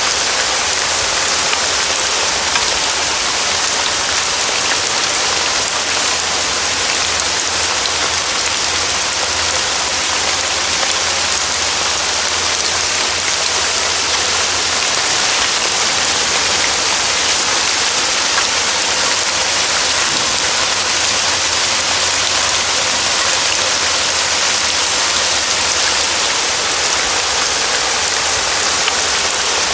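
Steady forest rain: a dense, even hiss of falling drops that keeps up without a break.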